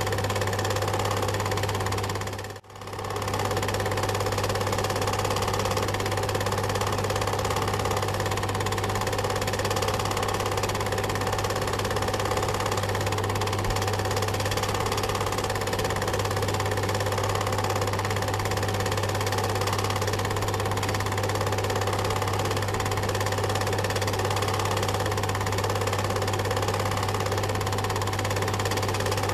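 Film projector running steadily, a continuous mechanical run with a strong low hum. It dips out briefly about two and a half seconds in and comes straight back.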